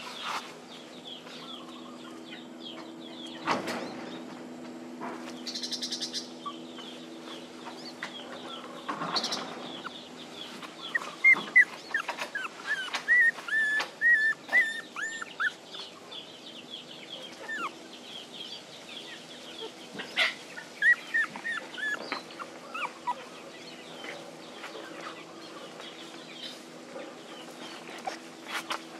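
Young puppies whimpering and crying in short, high squeaks, thickest a little before the middle and again soon after, as they cry for their mother. A steady low hum runs underneath.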